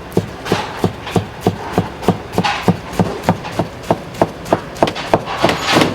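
Knife chopping on a cutting board in a steady rhythm, about three strokes a second.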